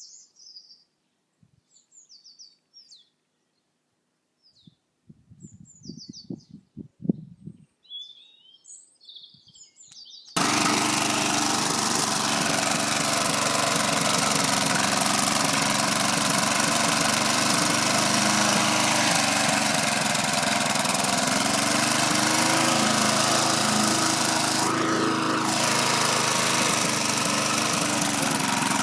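Birds chirping, then about ten seconds in a lawn mower engine comes in suddenly at full level and runs steadily and loudly.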